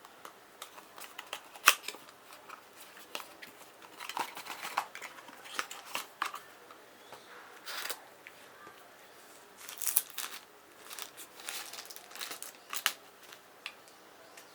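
A USB charger and its packaging being handled during unboxing: scattered sharp clicks, with short rustles and crinkles of wrapping.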